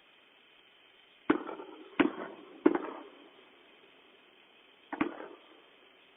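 Fireworks going off: four sharp bangs, each trailing off in a short echoing rumble, three of them in quick succession about two-thirds of a second apart and a fourth about two seconds later.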